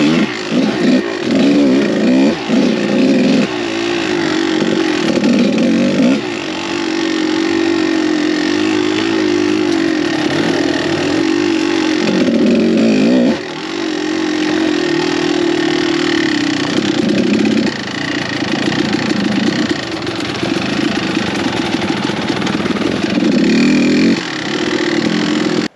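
Kawasaki KDX200 two-stroke single-cylinder dirt bike engine being ridden, the engine note rising and falling as the throttle is worked. There are quick throttle blips in the first few seconds, then longer pulls broken by brief drops in revs.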